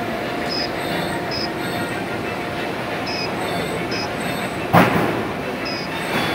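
Steady machine-shop background noise, with short high chirps at intervals and one sharp knock about five seconds in.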